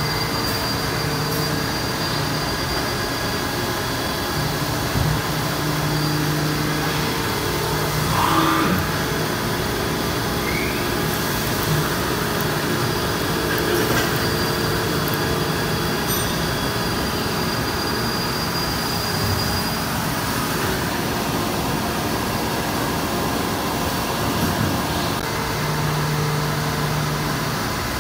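1998 Haas VF-4 CNC vertical machining center running with flood coolant spraying inside its closed enclosure: a steady hiss of coolant over machine hum. A low hum drops out and comes back several times, and a short rising whine sounds about eight seconds in.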